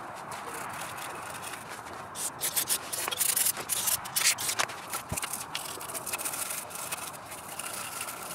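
Gloved hand scrubbing a metal IMRC intake runner plate with a rag on cardboard: a run of quick, uneven scratchy rubbing strokes, loudest from about two to five seconds in, lighter after that.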